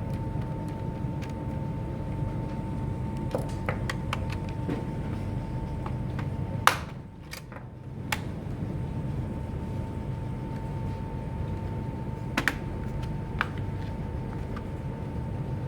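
Scattered sharp clicks over a steady low hum with a faint steady high tone. The loudest click comes about seven seconds in, and the hum drops away for about a second after it.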